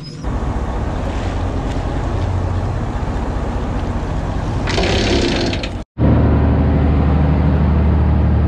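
Boat's Detroit 60 Series diesel engine running steadily, with water rushing along the hull and a brief louder rush of water about five seconds in. After a cut at about six seconds the engine drone is louder and steadier.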